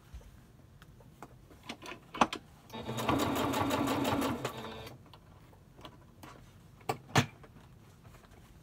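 Domestic electric sewing machine running for about two seconds, stitching a short seam. Sharp clicks come just before it and a few seconds after.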